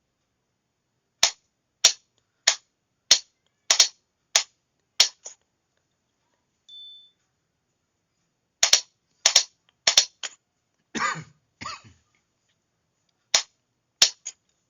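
Sharp mechanical clicks at an uneven, halting rhythm, singles and quick pairs about half a second apart with pauses between runs, typical of a hand key being pressed and released to send Morse letters. A short high beep sounds about seven seconds in, and a duller knocking rustle follows about eleven seconds in.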